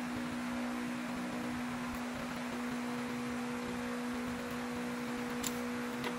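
A steady low hum over a faint even hiss, unchanging throughout.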